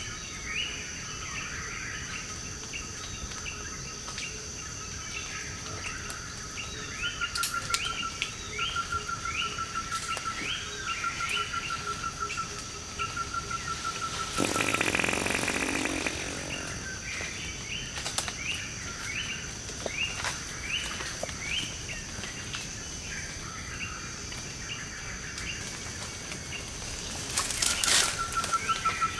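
Forest ambience of birds and insects: short rising chirps repeating roughly every half second over a steady high insect whine, with a rapid pulsing trill in stretches. A brief rush of noise comes about halfway through.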